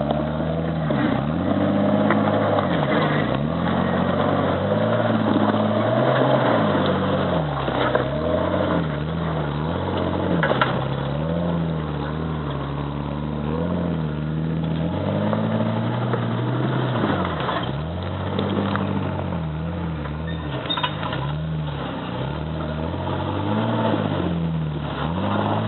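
Jeep Wrangler engine under load, revving up and falling back again and again as it crawls up a rocky ledge, with a few sharp knocks along the way.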